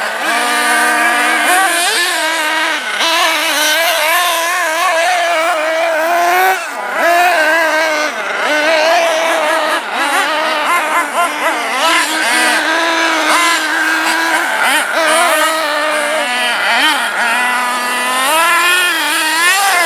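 Small two-stroke nitro glow engine of a 1/8-scale RC truggy running hard, its high-pitched buzz rising and falling constantly as the throttle is worked. It briefly drops off about six and a half seconds in and climbs again near the end.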